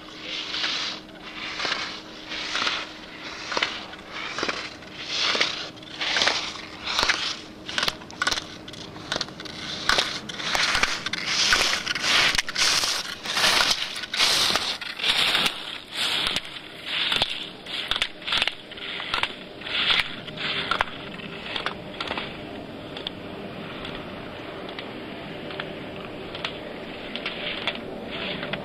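Ski edges scraping and carving on hard-packed snow in quick, rhythmic slalom turns, about one and a half swishes a second, with a few sharp clicks among them. Near the end the swishes give way to a steadier, quieter hiss.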